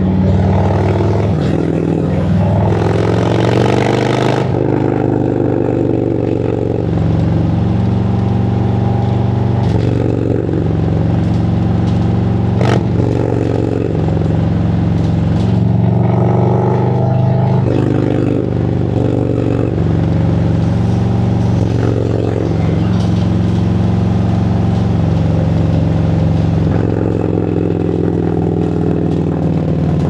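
2017 Harley-Davidson Road Glide Special's Milwaukee-Eight 107 V-twin running while riding, its note rising and dropping over and over as the bike accelerates and eases off in traffic. A short rush of noise comes a few seconds in, and there is a single sharp click near the middle.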